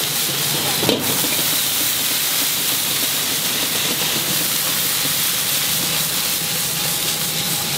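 Rice noodles sizzling in a very hot wok as they are tossed, a steady loud hiss of steam, with one short knock about a second in.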